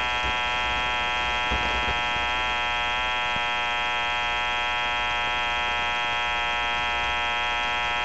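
A steady electrical buzz with many overtones, holding one pitch and level, with a few faint knocks under it about one and a half seconds in.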